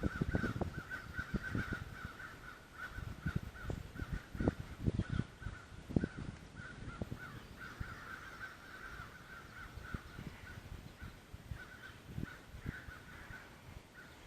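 A flock of crows cawing in alarm, a dense, nearly unbroken run of harsh caws from several birds, fading somewhat in the second half. Low thumps come and go beneath the calls, thickest in the first half.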